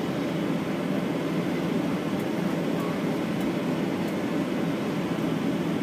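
Steady low rumble of cabin noise aboard a Boeing 737-900ER on the ground just before take-off: jet engines and air conditioning running evenly, with no spool-up.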